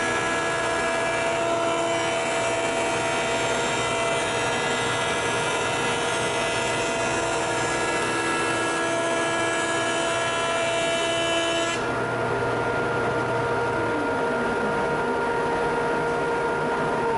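Jet JJP-12HH jointer/planer with a helical cutterhead face-jointing a birch board: a dense cutting hiss over the steady whine of the machine and dust collector. About twelve seconds in, the cutting stops abruptly as the board clears the head, leaving the machine and dust collector running.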